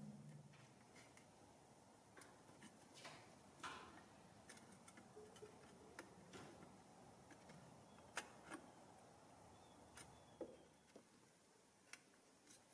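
Faint, scattered clicks and light scrapes of small steel hand tools on the rusty stamped-steel body of a toy plane, as its bent tabs are pried open to take it apart.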